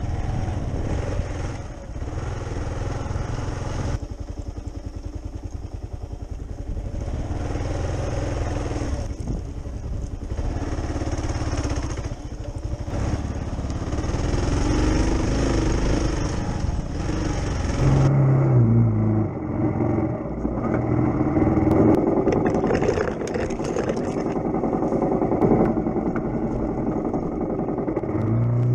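Kawasaki KLR 650 single-cylinder four-stroke engine running under load on a loose dirt trail, with wind and chassis clatter on the bike-mounted camera. In the last part the sound turns duller and the revs rise and fall repeatedly as the rear wheel spins in loose dirt on a climb that was hard to get up.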